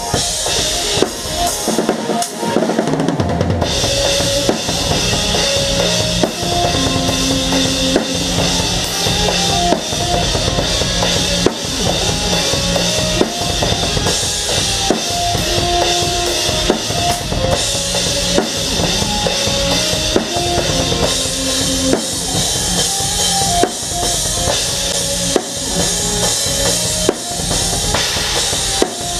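A live band playing, led by a full drum kit: fast, dense kick and snare hits under a constant wash of cymbals, with a melodic line stepping between notes above. The sound is thinner for the first few seconds, then the whole band comes in full about three and a half seconds in.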